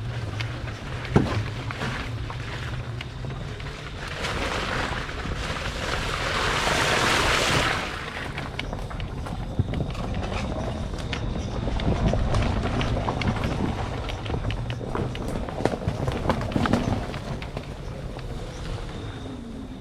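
Christini electric ATV riding a woodland trail, its four hub motors nearly silent: mostly tyre and chassis noise, a low rumble with frequent knocks and clicks over the rough ground. A rush of noise swells for a few seconds in the middle.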